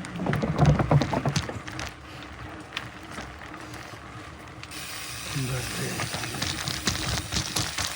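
Mountain bike rear freehub ticking rapidly while the rider coasts, loudest in the first couple of seconds and again near the end.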